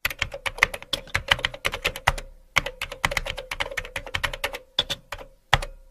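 Rapid, irregular keyboard typing clicks, a typing sound effect that goes with text being typed out on screen, with a short break a little after two seconds in.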